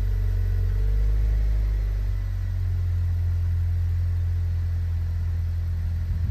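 Buick Regal GS's 2.0-litre turbocharged four-cylinder engine idling steadily just after a cold start, heard from behind the car at the exhaust tips.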